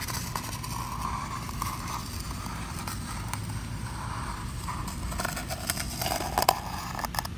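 Utility knife blade drawn through foil-faced butyl sound-deadening mat (Rattle Trap Xtreme), a steady scratchy scraping with a few sharp clicks near the end.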